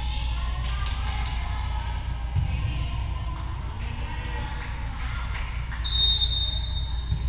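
Voices chattering in a gymnasium with a ball thumping on the hardwood floor, then near the end a referee's whistle gives one long blast, the signal for the server to serve.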